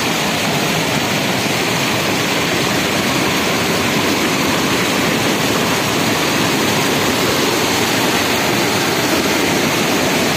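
Muddy floodwater pouring over a small concrete check dam and churning below it: a loud, steady rush of water from a stream swollen by heavy rain.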